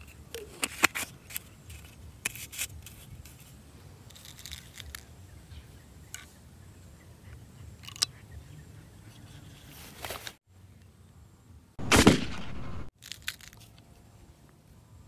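Plastic clicks and taps from a homemade PVC-pipe air gun being handled and loaded, with one loud burst of noise lasting about a second, about twelve seconds in.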